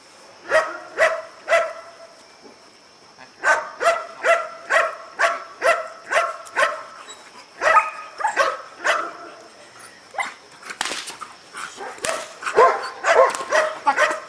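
A large shepherd-type dog barking in repeated bouts of short, sharp barks, about two a second, during bite-work training; the barks come thickest near the end.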